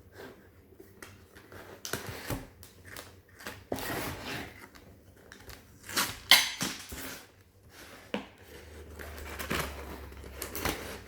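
Cardboard laptop box being handled and pried at to get it open: irregular scrapes, clicks and short rustles, the loudest sharp one about six seconds in.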